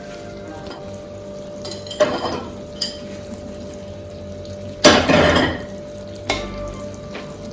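A cooking utensil stirring, scraping and knocking against a pot of stewing mackerel, with a few light clinks and one louder clatter about five seconds in.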